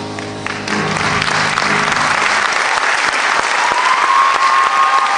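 Audience applause breaks out about a second in as the show choir's last held chord dies away. It swells into steady clapping and cheering, and a long high whistle sounds near the end.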